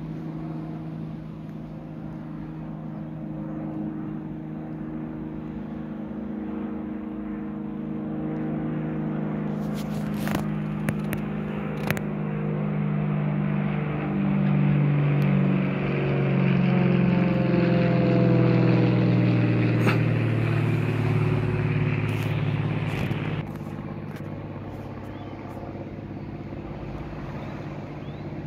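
Single-engine light propeller aircraft flying overhead: a steady engine-and-propeller drone that builds as it approaches, peaks as it passes, and slides down in pitch as it moves away, falling off suddenly near the end.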